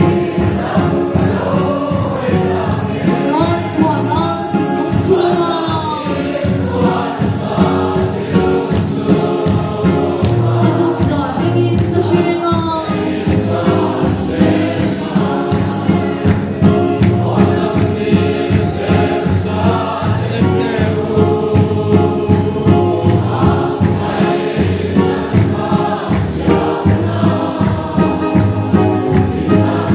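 Congregation singing a gospel hymn together over a steady, evenly spaced beat.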